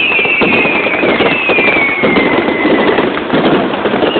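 Fireworks going off in dense rapid crackling pops. Two long whistles fall slowly in pitch through it, and a third begins near the end.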